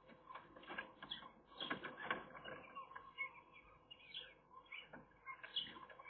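A Eurasian magpie moving about in its nest cup, making quiet, irregular rustling and crackling of dry grass and twigs as it works the nest lining.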